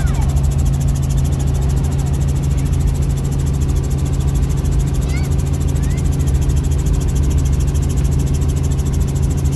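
Helicopter engine and rotor drone heard inside the cabin in flight: a steady, loud, low hum that does not change.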